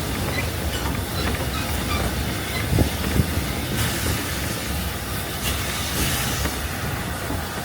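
Narrow-gauge steam train running, a steady rumble with steam hiss and two short knocks about three seconds in.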